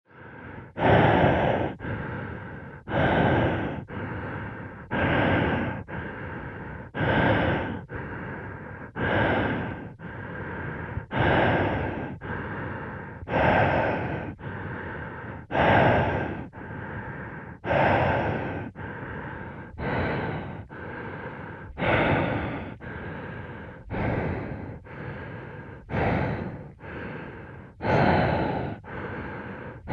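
Slow, regular breathing inside a space helmet, muffled: one breath cycle about every two seconds, a louder breath followed by a softer one, with a faint steady tone underneath.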